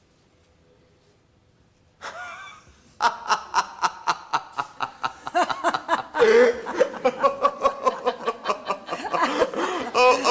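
Several people laughing hard after a near-silent pause of about two seconds, breaking into rapid ha-ha pulses from about three seconds in and carrying on to the end.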